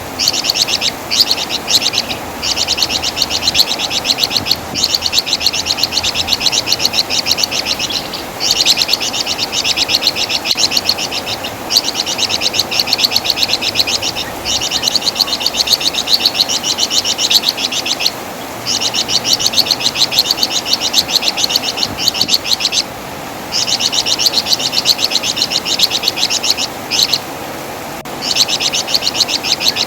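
Javan fulvetta (the flamboyan or wergan Jawa of Indonesian bird keepers) singing a fast, high chattering trill in runs of a few seconds each, with short breaks between.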